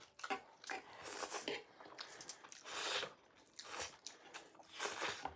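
A person chewing a mouthful of sausage chow mein close to the microphone, with irregular wet mouth noises coming every second or so.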